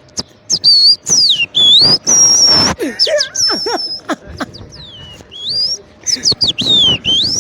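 A man imitating a weaver bird's song with his mouth: a quick run of sharp, high whistled notes sliding up and down, some held steady, with breathy rushes of air between them.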